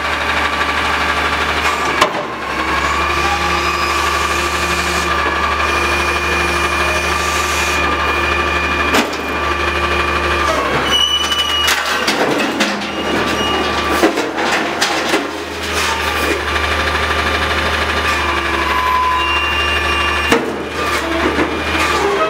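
Heil front-loader garbage truck's engine running with a steady hydraulic whine as the arms raise a dumpster over the cab and tip it. Sharp metal bangs come a couple of times early on, in a cluster in the middle and again near the end, as the dumpster is shaken out at the top.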